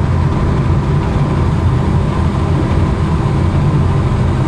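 Black-oil-fired brass-melting crucible furnace burning under forced air from an electric motor blower: a loud, steady low rumble.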